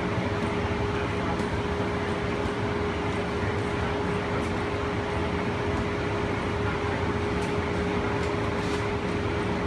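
Steady running noise inside a moving cable-hauled BART Oakland Airport Connector car: an even rumble with a steady hum-like tone held throughout.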